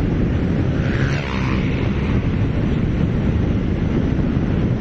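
Wind buffeting the microphone of a moving motorcycle: a steady low roar. An oncoming motorbike passes about a second in, adding a brief higher sound.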